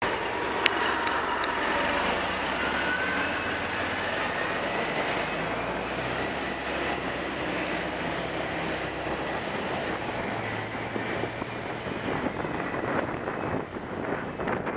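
Street traffic heard from a moving bicycle: steady engine and road noise from a city bus just ahead and other vehicles. There are a few sharp clicks in the first second and a half, and the sound turns choppier with wind on the microphone near the end.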